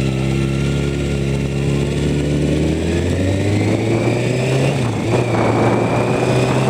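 Kawasaki Ninja ZX-6R inline-four engine under way, pulling from low revs with its pitch rising steadily. The pitch drops suddenly about five seconds in at a gear change, then climbs again.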